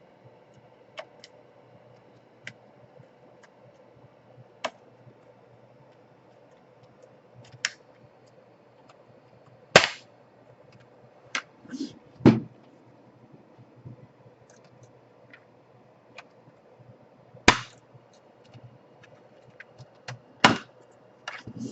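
Plastic snap-fit clips of a laptop's casing popping loose one after another as it is pried open: scattered sharp snaps and clicks, a few of them loud, with quiet gaps between.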